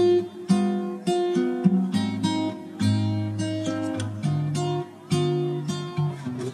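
Background music: an acoustic guitar playing a melody of plucked notes that start sharply and fade.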